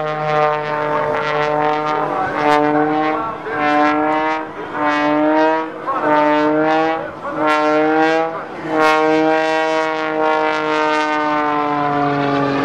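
Aerobatic propeller airplane's engine running hard through a routine, its pitch falling and rising in short stretches as power changes, with brief dips in between.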